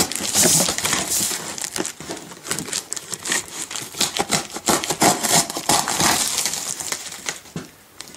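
Clear plastic packing tape crinkling and tearing as a heavily taped cardboard box is opened, in dense irregular crackles and rustles.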